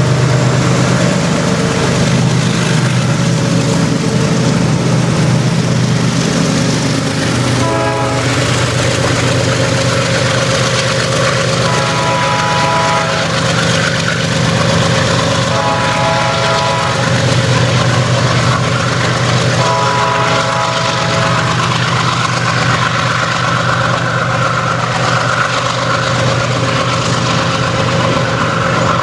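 Freight train with several diesel-electric locomotives passing close and drawing away, engines running steadily under the rumble of wagons rolling on the rails. The locomotive horn sounds a short blast about eight seconds in, then three longer blasts, a warning as the train nears a level crossing.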